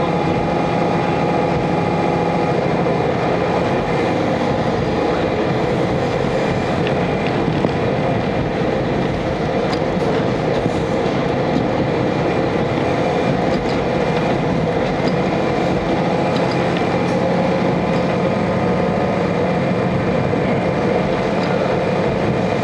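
Inside a JR KiHa 40 diesel railcar under way: the engine drones steadily over continuous rolling wheel-and-rail noise, with a few faint clicks. The engine's hum eases off a few seconds in and comes back near the end.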